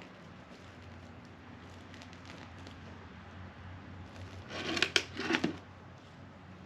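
Rustling and scraping as a plant pot full of soil is handled, with a short cluster of loud crinkling about five seconds in.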